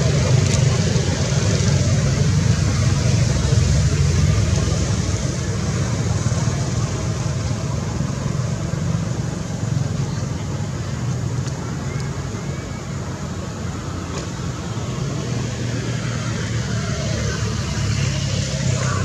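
Steady low rumble of an idling motor vehicle engine and road traffic close by, slightly quieter partway through.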